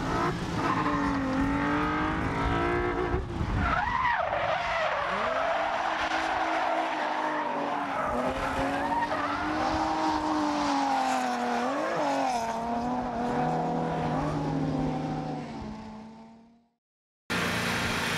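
Drift cars sliding on a track: engines revving with a rising and falling note, and tires squealing. The sound fades out near the end, and after a brief silence it cuts to a steady noise.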